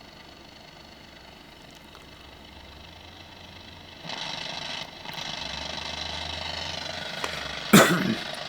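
HMV valve clock radio humming and buzzing with mains power on it, a noise the repairer thinks may be coming from its electric clock. The buzz gets louder about four seconds in, and a sharp knock comes near the end.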